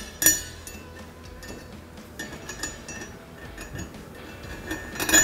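Bolt and spacer hardware clinking against a steel nerf bar tube as they are fitted: a few light metal clinks, the loudest just before the end.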